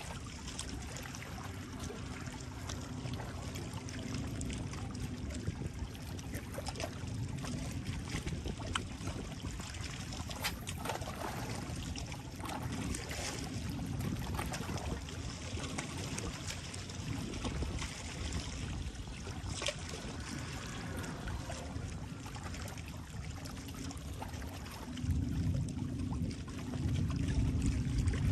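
Sea water lapping and trickling at the shoreline, a steady watery wash with small splashes, with a lower rumbling noise that grows louder near the end.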